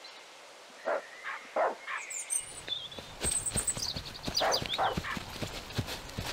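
Outdoor soundscape: a dog barking, birds chirping, and from about two and a half seconds in, the quick footsteps of children running through grass.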